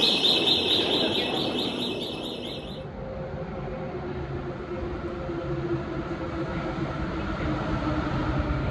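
A rapid, high-pitched electronic beeping for about the first three seconds, then the steady rumble and hum of a metro train.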